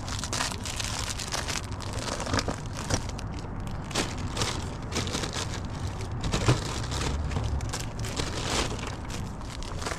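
Plastic bags and snack wrappers crinkling and rustling as they are handled, in quick irregular crackles, with one sharper click past the middle, over a low steady rumble.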